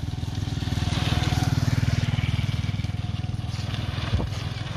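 A tractor engine running close by with an even, fast chugging, growing louder toward the middle and easing off a little after. A single sharp knock sounds near the end.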